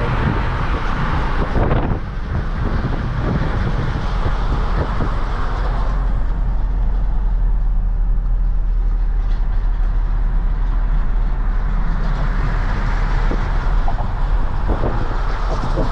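Truck driving at road speed, heard from a camera mounted outside the vehicle: steady loud road and wind noise over a low drone. It cuts off suddenly at the end.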